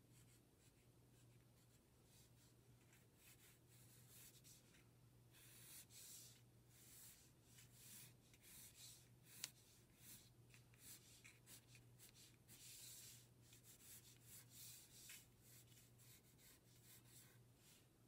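Pencil drawing on paper: a run of faint, short scratchy strokes as long lines are sketched, with one sharp tick about halfway through. A steady low hum sits underneath.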